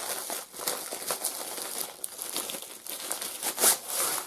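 A long white packaging bag crinkling and rustling as it is handled and unfolded to get at the craft kit inside, in irregular bursts with the loudest crinkle near the end.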